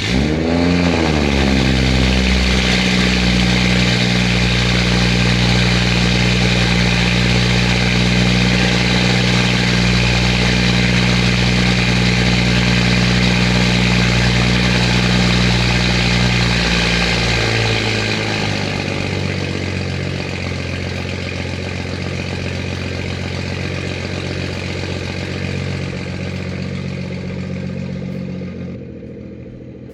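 BMW 340i's B58 turbocharged inline-six starting up, breathing through a Valvetronic axle-back exhaust with both resonators deleted. It flares up and back down in revs, then holds a steady high cold-start idle that drops to a lower idle about two-thirds of the way through.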